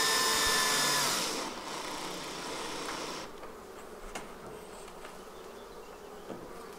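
Cordless drill driving a long screw into an observation hive's pine side panel, its motor whine dropping slightly in pitch and stopping about a second in. After that, honey bees hum inside the hive.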